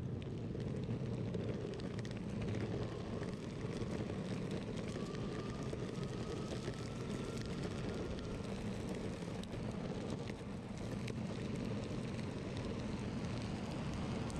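Steady rumble of wind and road noise while riding an electric longboard, with a faint whine that rises slightly about five seconds in.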